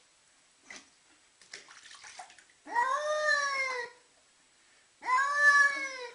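Domestic cat yowling twice in protest while being bathed, each call a long drawn-out meow that rises and then falls in pitch, sounding like "no". Faint water and handling noises come between the calls.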